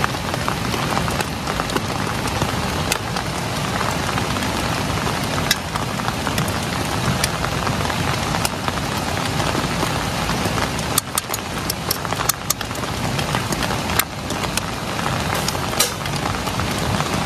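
Portable butane-canister camping stove burning under a cooking pot with a steady rushing hiss. A metal spoon clicks sharply against the pot now and then, several times about two-thirds of the way through.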